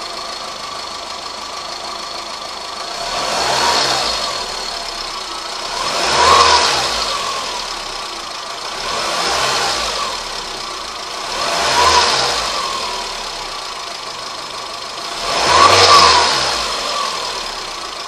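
Volkswagen Saveiro G5 engine idling and revved up and back down five times, being checked for a strange noise that shows up at around 2,000 rpm.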